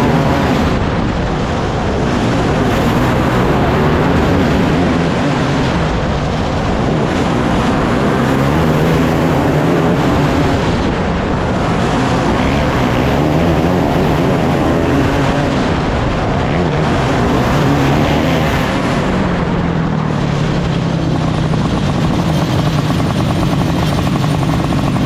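A field of race car engines running at speed around a track, the engine pitch rising and falling and the sound swelling every few seconds as the cars pass.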